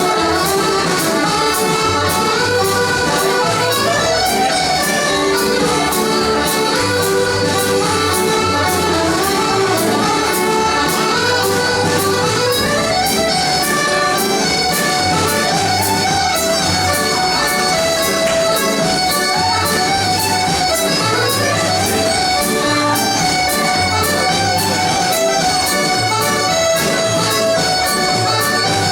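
A Scottish country dance band playing a lively tune, led by accordion over a steady, even beat.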